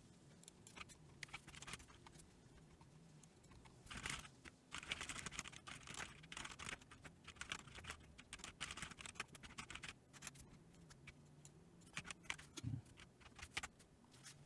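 Faint clicking and tapping of a computer keyboard and mouse: a dense run of quick clicks from about four seconds in to about ten seconds, then scattered clicks, over a faint low hum.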